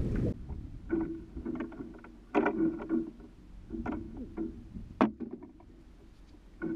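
Penn Slammer spinning reel whirring in short bursts as a fish is fought on the rod, the reel working under load. A rush of wind cuts off sharply right at the start, and there is a single sharp click about five seconds in.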